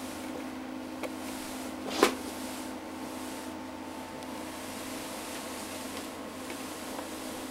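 A steady electrical hum with one sharp click about two seconds in and a fainter tick about a second in.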